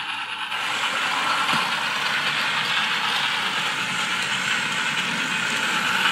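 Battery-powered remote-control toy train locomotive running on plastic track, its small electric motor and plastic gears giving a steady rattling whir that starts abruptly.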